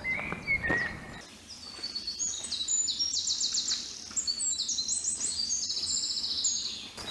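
Woodland songbirds singing: a string of high chirps and fast trills that start about a second and a half in and overlap to near the end. In the first second there are a few footsteps on a dirt path.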